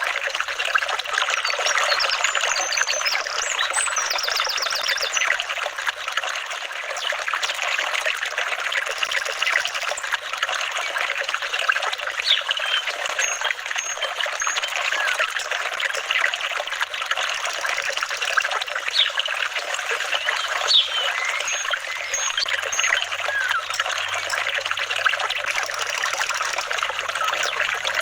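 Water trickling and burbling steadily over stones in a small stream, with a dense, even splashing that doesn't let up.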